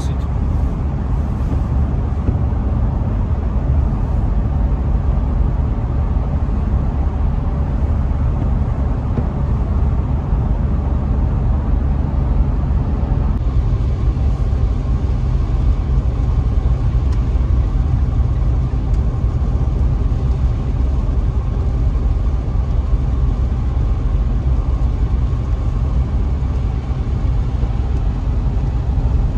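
Steady road and engine rumble inside the cabin of a Mitsubishi Pajero Sport 2 cruising at about 60 km/h, with its new sound insulation fitted. The low rumble shifts slightly about a third of the way in.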